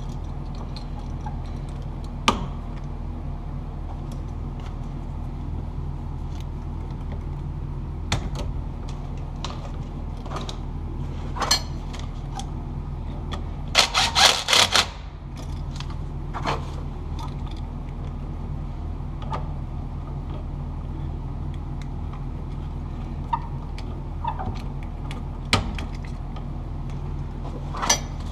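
Scattered small clicks, taps and metallic rattles from hands working a light switch, its wires and tools, with a short burst of clattering about halfway through, over a steady low hum.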